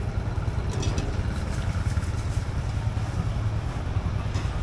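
A steady low engine rumble, like an idling motor vehicle, with a few light clicks over it.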